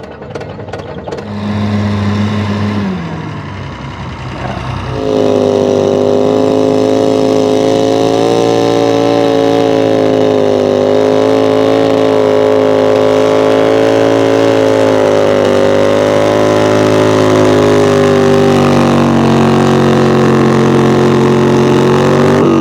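An engine running hard at a steady high speed, its pitch holding and then sagging slightly near the end. It comes in suddenly about five seconds in, after a briefer, lower hum.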